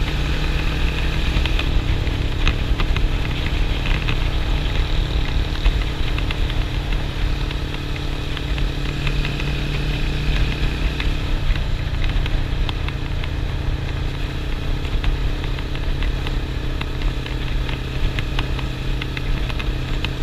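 Suzuki motorcycle engine running at a steady road speed, heard from on board the bike, with wind and road noise over it.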